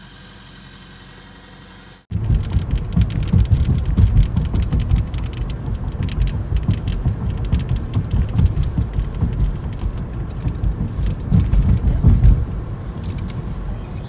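Car driving along a road: a loud, uneven low rumble of road and wind noise that cuts in abruptly about two seconds in, after a faint, quiet stretch.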